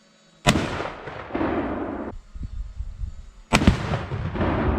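Two sharp blasts from a half-pound Tannerite exploding target set off by a rifle shot, about three seconds apart, each followed by a rolling echo. The first echo breaks off abruptly.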